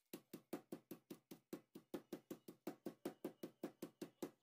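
A wooden rolling pin pounding a chicken thigh fillet through a thick plastic bag on a table to flatten it: a fast, even series of thuds, about five a second.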